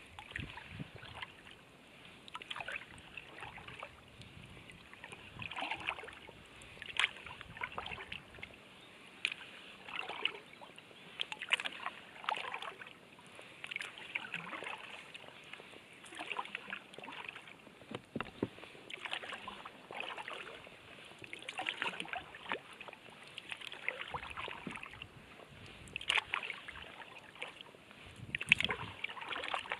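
Kayak paddle strokes in calm water: the blade dipping and splashing with drips, in a rough rhythm of a stroke every second or so, some louder than others.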